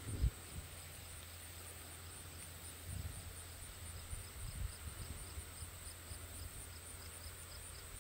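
Quiet outdoor ambience: low wind rumble on the microphone, with a soft thump just after the start and a few smaller handling bumps. A faint regular high ticking runs through it at about three a second.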